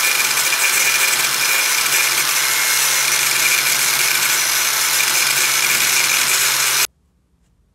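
Electric angle grinder cutting through a small metal pin with its cut-off disc, running steadily. The sound stops abruptly about seven seconds in.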